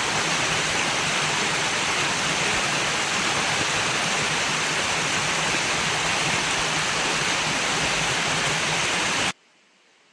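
Waterfall rushing in a steady roar of water that cuts off suddenly near the end, leaving only a faint hiss.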